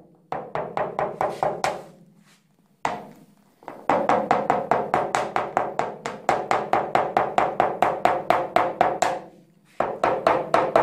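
Rapid light hammer taps in paintless dent repair, knocking down high spots on a Skoda Rapid's steel roof panel, about seven taps a second with a short ring to each. A short run of taps comes first, then a pause of about two seconds, then a long steady run that stops briefly near the end and starts again.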